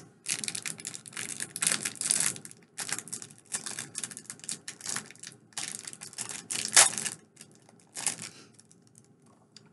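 Packaging being unwrapped by hand: irregular crinkling and rustling in quick runs with brief pauses. The loudest crackle comes near seven seconds in.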